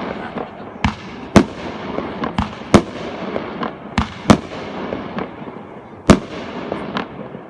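Fireworks bursting: about seven sharp bangs, the loudest about six seconds in, over a continuous crackling that dies away near the end.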